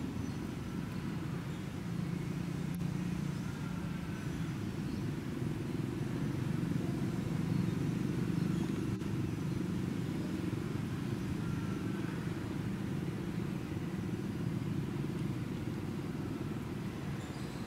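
Steady low rumble of distant motor traffic, swelling a little about halfway through and easing off again.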